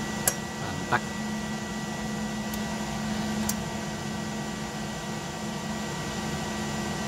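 Steady electrical hum with a thin high whine from an INVT GD20 variable-frequency drive running its 2.2 kW three-phase motor at about 11 Hz. Two sharp clicks come within the first second.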